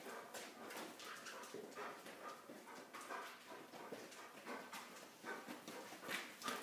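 A dog's nails clicking and a person's footsteps on a concrete floor as the dog heels beside the walking handler: a run of light, irregular taps.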